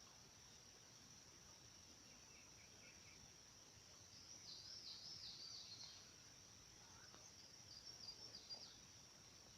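Faint outdoor ambience: a steady high insect drone, with a bird chirping in two short bouts, about four seconds in and again near the end.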